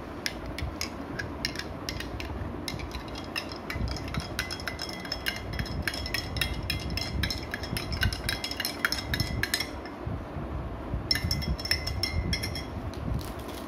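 Metal spoon stirring a powdered grape drink mix in a glass mug, clinking rapidly against the glass, which rings with each strike. The clinking stops about ten seconds in, then comes again in a shorter burst, over a steady low rumble.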